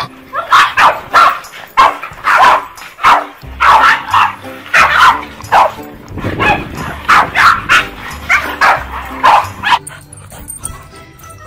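Boston terriers barking repeatedly in short, sharp barks, about two a second, over background music. The barking stops shortly before the end.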